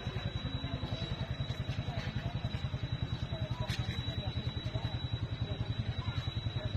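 Small engine running steadily with an even low beat of about ten pulses a second, under a thin steady high whine.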